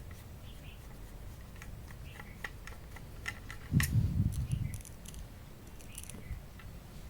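A Phillips screwdriver working the small screws out of a metal hard-drive caddy, making scattered light clicks and scratches. About four seconds in there is one dull handling thump with a brief low rumble.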